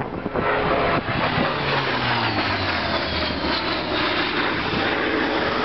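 Hawker Sea Fury's Bristol Centaurus 18-cylinder radial engine and propeller running during a display pass. The engine note falls in pitch as the aircraft goes by, a couple of seconds in, then holds steady.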